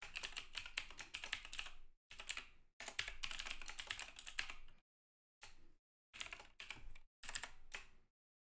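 Fast typing on a computer keyboard: several quick runs of keystrokes broken by short pauses, the longest pause near the end.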